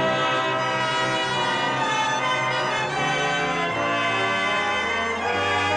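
Orchestral opening theme of a radio drama, with brass prominent, playing sustained chords that shift a few times.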